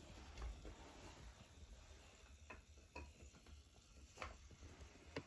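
Near silence with a few faint, scattered clicks and knocks from a wooden toy train set: the train and track pieces being touched and moved.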